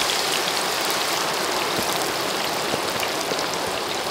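Green banana slices deep-frying in a wok of hot oil: a steady, dense sizzle with small crackles from the bubbling oil.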